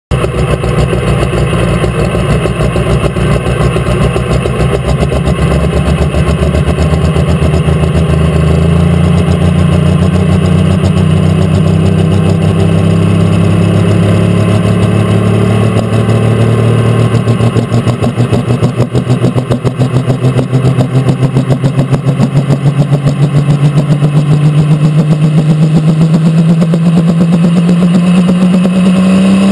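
Pulling tractor's diesel engine running loud and steady through its single straight stack, heard close from the driver's seat. Its pitch creeps slowly upward over the second half as the revs are brought up at the start line.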